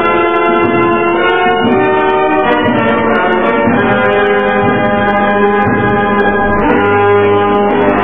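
Orchestral music bridge with brass playing held chords that change every second or so, in narrow-band, old-recording sound. It is the musical interlude that marks a scene change in a radio serial.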